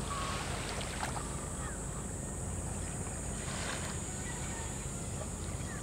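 Steady low rumble of a boat engine running, with a few brief high chirps over it.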